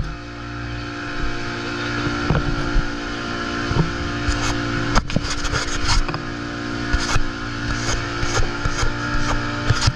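Boat engine running steadily at an even pitch, with a noisy rush and scattered sharp knocks.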